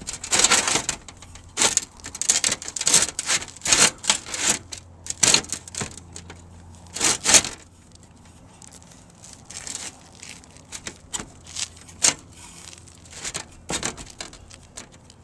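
Sheet-metal roof-vent flashing being slid and worked up under asphalt shingles: a run of irregular scraping and crinkling rasps, dense and loud in the first half, fewer and softer later on.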